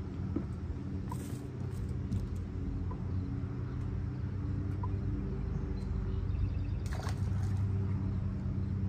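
Steady low motor hum, with two brief noisy rustles, one about a second in and a longer one about seven seconds in.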